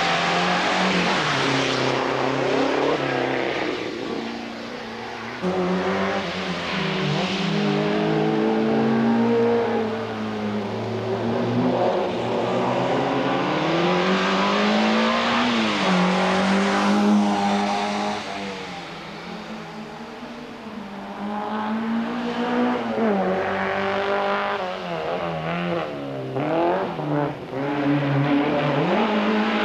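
Small hatchback hillclimb race cars, among them Peugeot 205s, driven hard one after another: engines revving up and dropping back with gear changes and braking, quieter gaps between cars. Tyres hiss through standing water.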